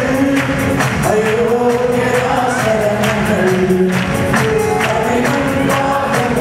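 Live worship song: a woman singing over electronic keyboard accompaniment, with a regular percussion beat.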